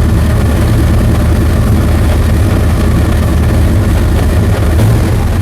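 1970 Mustang's carbureted engine with a Holley carburetor running at a steady fast idle, around 1500 rpm, with its ignition timing a little advanced by the owner's reckoning.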